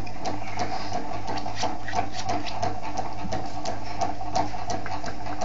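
Small electric motors and gearing of a scale-model automatic car-parking mechanism running: a steady mechanical hum with irregular sharp clicks, about three or four a second.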